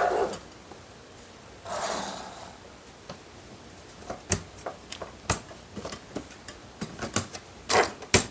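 Hard plastic robot-arm parts clicking and knocking as the plastic arm cover is pressed down over metal standoffs and the belt. There is a short scraping rustle about two seconds in, then a run of sharp, irregular clicks.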